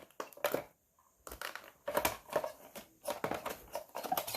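Rustling and irregular light clicks and knocks of small objects being handled and pushed into a container while packing.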